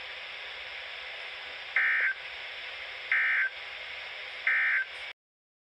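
EAS end-of-message data signal: three short, evenly spaced bursts of SAME data tones over a steady radio hiss, with the audio cutting off suddenly after the third burst.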